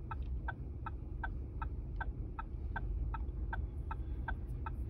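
Car turn-signal indicator ticking evenly, about three ticks a second, over the low rumble of the idling engine.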